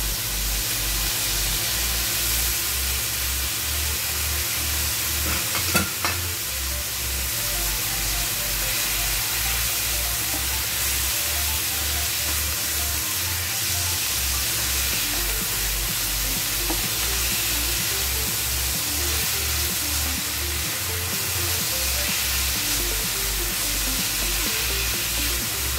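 Chicken pieces sizzling in a hot frying pan as they are stir-fried, with white wine just added. There is one sharp knock about six seconds in.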